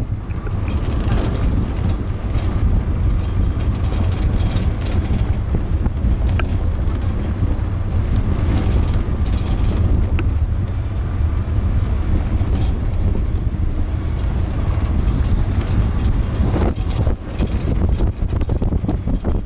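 Wind buffeting the microphone and road rumble from a moving open-sided sightseeing cart: a steady, loud low rumble with a hiss of passing air.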